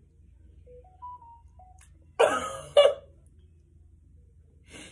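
A person coughs twice, a longer cough about two seconds in followed at once by a short one. Before it come a few faint short tones stepping up and down in pitch.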